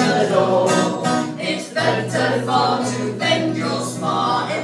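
Several voices singing a folk song live, with a steady low note held underneath the melody.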